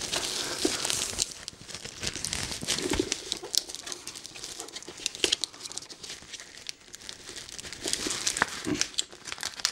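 White plastic packaging bag crinkling and rustling as it is handled and pulled open, with irregular sharp crackles.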